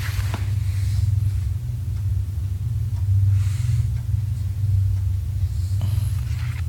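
A steady low rumble, with a few faint, brief rustling or handling noises over it.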